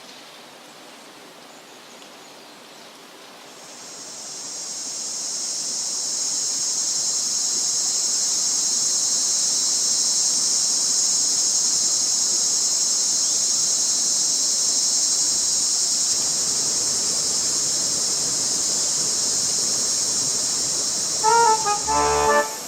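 High-pitched insect chorus that swells in about four seconds in and then holds as a steady drone. Music starts near the end.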